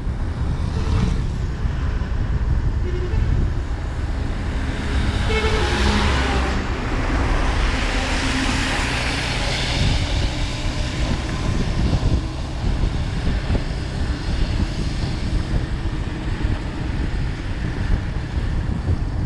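Road and wind noise from a vehicle driving along a highway: a steady low rumble, with brief engine tones about three to six seconds in and a louder hissing rush from about six to ten seconds in.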